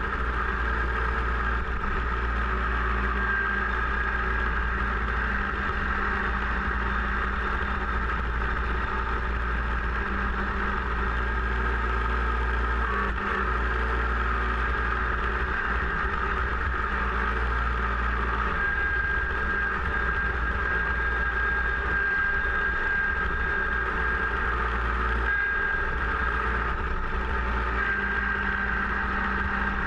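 Kubota BX compact tractor's small three-cylinder diesel engine running steadily while it drives its front-mounted snowblower through snow, with a steady high whine over the engine note.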